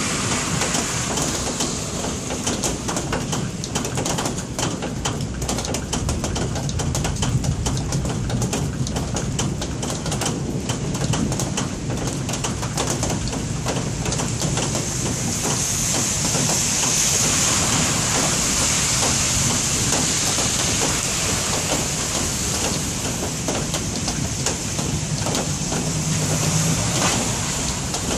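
Steady rain in a thunderstorm, a dense patter of drops over a low background rumble, growing a little louder from about halfway through.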